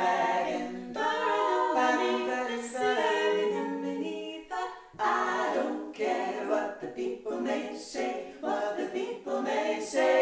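Female barbershop quartet singing a cappella, four voices in close harmony, with a brief break between phrases about halfway through.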